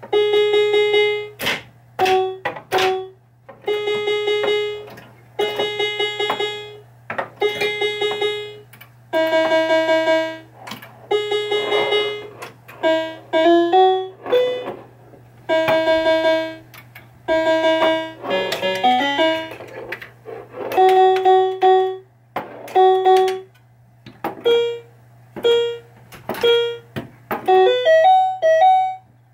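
Bally Fireball Home Edition pinball machine's electronic scoring tones as the ball strikes switches: short bursts of rapidly repeated beeping notes, one burst every second or two, each at a different pitch, over a faint steady hum.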